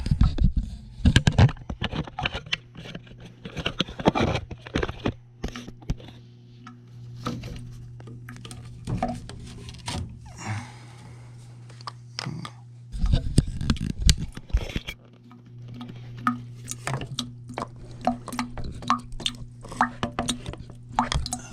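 Irregular knocks and clatter of plastic PVC condensate drain pipe and fittings being handled and pulled apart, over a steady low hum.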